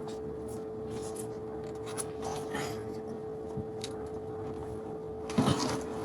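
Scattered rustling, scraping and small clicks of handling over a steady hum, with a louder rustle about five seconds in.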